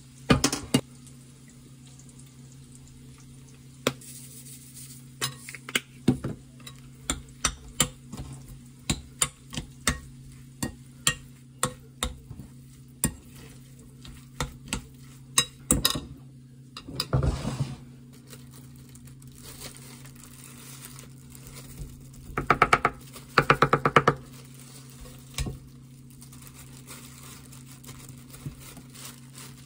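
A metal spoon clinks and scrapes against a glass mixing bowl as cooked rice is stirred together with gochujang, giving a string of sharp taps for much of the time. There are denser scraping or rustling patches a little past halfway, all over a steady low hum.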